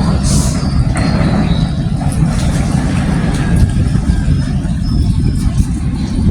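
Steady low rumble of vehicles running, with a brief hiss about half a second in.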